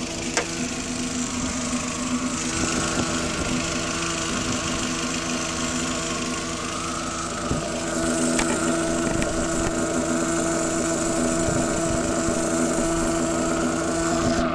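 Audi TT engine running, with a steady hum of a few fixed tones over the engine sound that gets a little louder about eight seconds in. This is the strange noise that appeared after a new PCV valve and jet pump were fitted.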